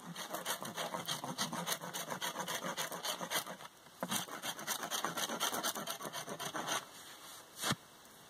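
Knife blade scraping loose bark off a black spruce pole in quick repeated strokes, several a second, with a short pause a little before halfway. The scraping stops about two-thirds in, and a single sharp knock follows near the end.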